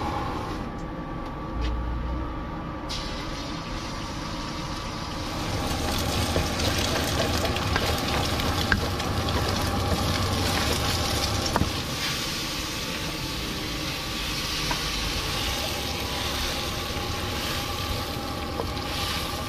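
Food sizzling and frying in a hot wok, with a wooden spatula scraping and tapping against the pan, over the steady hum of a range hood fan.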